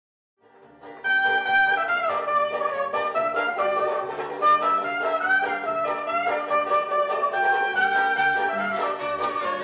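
Instrumental music led by a brass melody over a regular beat, coming in about a second in.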